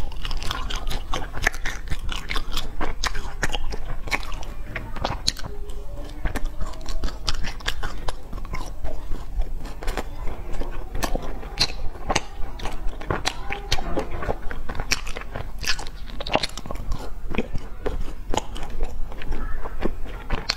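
A person biting and chewing sesame-crusted pastry close to a clip-on microphone: a continuous, irregular run of sharp crunching clicks with wet chewing between them.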